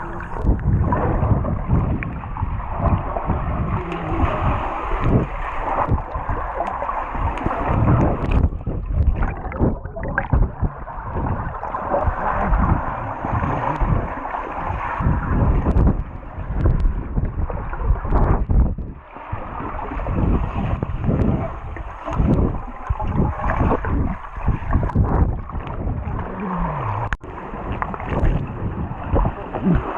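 Pool water splashing and gurgling around a GoPro camera in the water, a continuous uneven sloshing with many low thumps.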